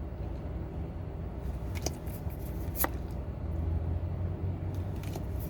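Trading cards being handled and flipped through: a few short ticks and faint rustles over a steady low hum.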